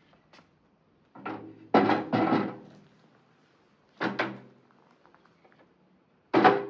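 A series of hollow thunks and knocks in three clusters a couple of seconds apart, each with a brief ringing tone; the loudest come about two seconds in.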